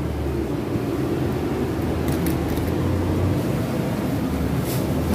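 Steady low mechanical rumble of something running, with a few faint clicks about two seconds in and near the end.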